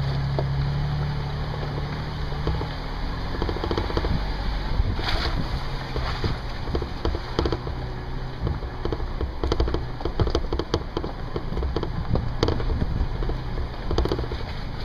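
Off-road vehicle crawling over a rocky trail: its engine runs low and steady underneath, while irregular cracks, knocks and crunches come from the tyres rolling over rocks and sticks.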